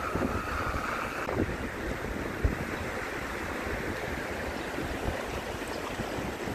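Wind buffeting the microphone over the running water of a shallow stream, with a brief tone in the first second and a single bump about two and a half seconds in.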